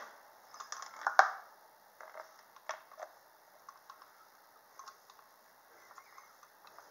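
Scattered light clicks and taps from tools being handled at the top of the engine during a compression test, with a sharp click about a second in and another a little under three seconds in, then only faint occasional ticks.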